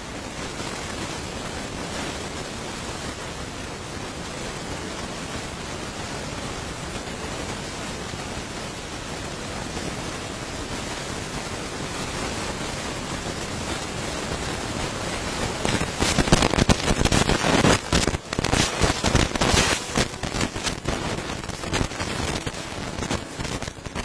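Steady static hiss that breaks into loud, irregular crackling about two-thirds of the way through; no singing or instrument can be made out.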